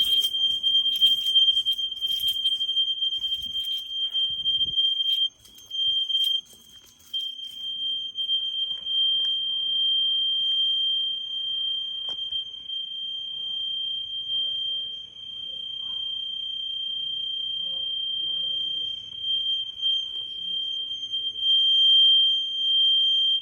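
Fire alarm sounder giving one steady, high-pitched electronic tone, broken off briefly a few times about five to seven seconds in, then cutting off suddenly at the end.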